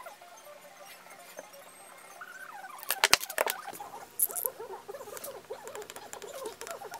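Hand tools working veg-tan leather on a cutting mat: short squeaky scrapes and scratches. About three seconds in comes a loud cluster of clicks and knocks. Near the end a yellow snap-off utility knife cuts along the traced outline of the leather with scratchy squeaks.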